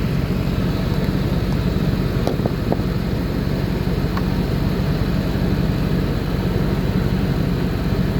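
An engine running steadily with a low rumble, with a few faint clicks a little over two seconds in.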